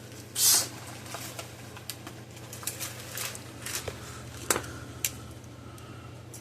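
Scattered light clicks and taps of small tools and wires being handled on a workbench, with a short hiss about half a second in, over a steady low hum.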